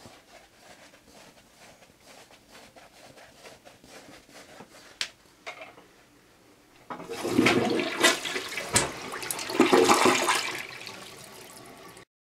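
A toilet flushing a load of toilet paper: faint crackles and ticks, then about seven seconds in the flush starts with a loud rush of water that lasts about four seconds and fades.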